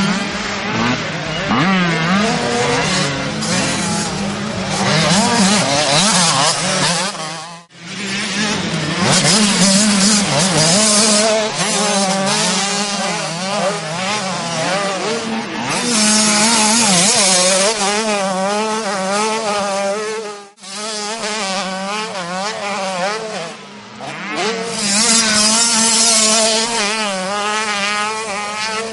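Motocross motorcycle engines revving hard under race throttle, their pitch constantly rising and falling. The sound cuts out sharply twice, briefly each time.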